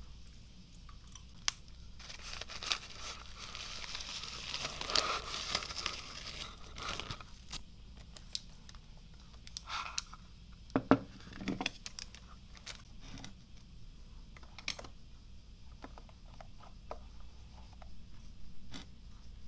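Packaging crinkling and rustling for several seconds, then light clicks and a few sharper knocks as Pretz pretzel sticks and their cardboard boxes are handled and set down on a wooden plate and table.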